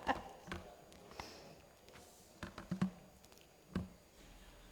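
Scattered light knocks and taps in a quiet room: a few close together around the middle and a stronger one near the end.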